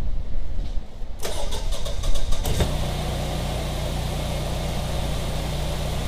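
Generac 22kW air-cooled home standby generator starting: the starter cranks for about a second and a half, the engine catches about two and a half seconds in, then settles into a steady run at 3600 RPM.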